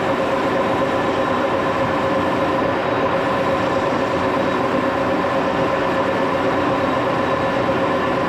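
Axelson engine lathe running steadily under power while a small part is turned, a constant machine drone with a steady gear whine over it.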